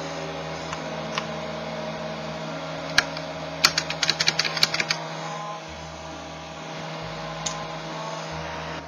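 Keys struck on the Findex microcomputer's keyboard: a single click about three seconds in, then a quick run of about ten key clicks over a second or so, and one more click near the end, over a steady background hum.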